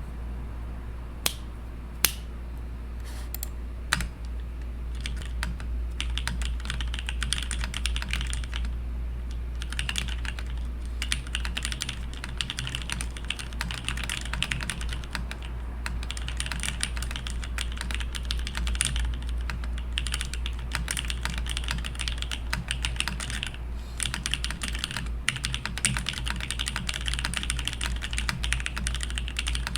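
Mechanical keyboard with DSS-profile keycaps being typed on: a few separate keystrokes at first, then fast, continuous typing from about four seconds in, broken by a few brief pauses. A steady low hum runs underneath.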